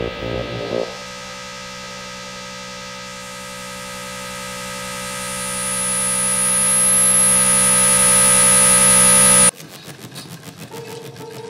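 Electroacoustic music: a steady electric-hum-like drone of many stacked tones that swells from about four seconds in, with a high thin whistling tone joining above it. The drone cuts off suddenly near the end, leaving a quieter, sparse texture with a held mid-pitched tone.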